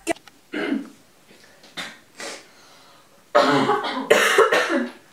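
A person coughing in a few short bursts, then a longer, louder stretch of coughing and voice noise starting a little past halfway.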